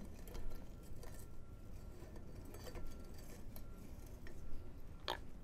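Faint scattered clicks and light metal taps as pressure-plate bolts are fitted by hand through a flat steel bar into the flywheel, with one sharper click near the end.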